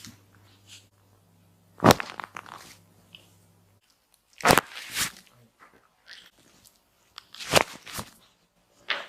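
Spinal joints in the neck and back cracking: a series of sharp pops, the loudest about two seconds in, then a pair a little past four and a half seconds, another pair around seven and a half to eight seconds, and one more near the end.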